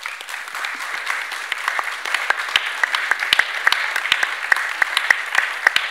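Audience applauding, the clapping swelling over the first couple of seconds and then holding steady.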